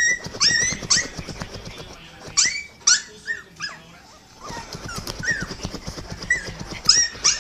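A small dog whimpering and whining in many short, high cries, some in quick runs, answering a crying dog in a video playing on a phone. In the second half a low, rough rumble runs under the whines.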